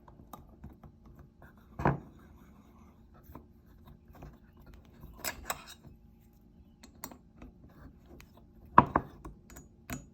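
Small clicks, taps and scrapes of hands and a tool working the screws on the arm of a small tensegrity table, with three louder knocks about two, five and nine seconds in.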